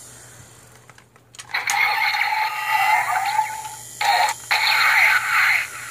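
Electronic sound effects played through the small speaker of a Kamen Rider Drive toy transformation belt (Drive Driver), thin and without bass. After a short pause there is a burst of tones with sliding pitches about a second and a half in, then two shorter bursts near the end.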